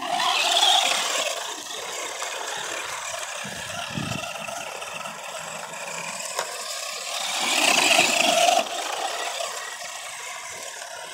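Electric motor and geartrain of a Force RC Outbreak 4WD RC monster truck whining as it drives over grass and dirt. It is loudest in a burst right at the start and again around eight seconds, where it cuts off suddenly, and there is a low thump about four seconds in. It is running on its stock nickel-metal hydride pack, whose speed is dying down.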